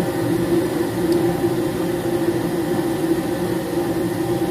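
Gas furnaces in the heating warm-up: draft inducer motors and lit burners running as a steady hum and rush, before the blower has started.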